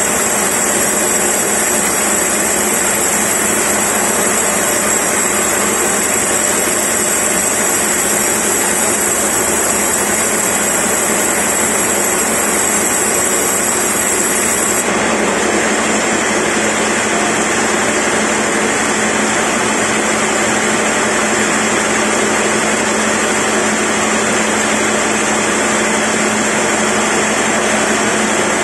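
Sawmill band saw running and cutting lengthwise through a large log: a loud, steady whine of blade and motor with no letup. The tone shifts slightly about halfway through, when a low hum comes up.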